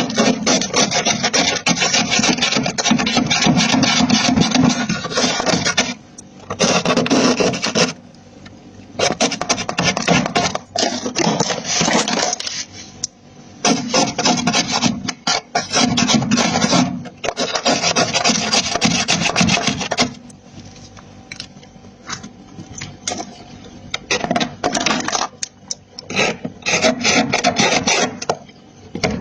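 Freezer frost being scraped off, in long scraping strokes lasting a few seconds each with short pauses between them, turning to shorter, choppier scrapes in the last third.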